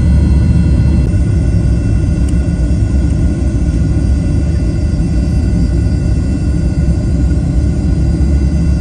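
Loud, steady low rumble of a jet airliner heard inside the cabin, with a faint steady whine above it. The aircraft is on the ground with its flaps down and lift dumpers raised, as on the landing roll.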